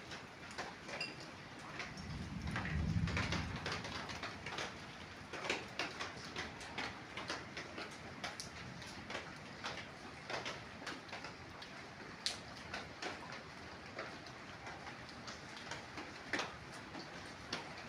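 Rain falling, with irregular drops ticking sharply on a hard surface. A low rumble swells and fades about two to four seconds in.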